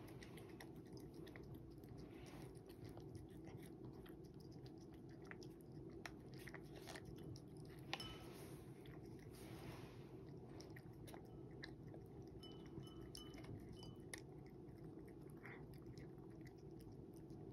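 A cat eating from a ceramic bowl: faint, irregular chewing and small clicks over a steady low hum.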